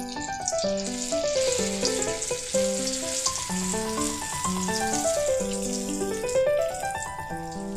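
Background music of quick melodic notes running up and down, over the steady sizzle of an egg-coated eggplant omelette frying in hot oil in a wok.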